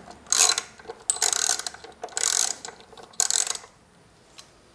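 Hand ratchet on a long extension clicking in four quick spells of ratcheting as a coil-pack bolt on the engine is backed out.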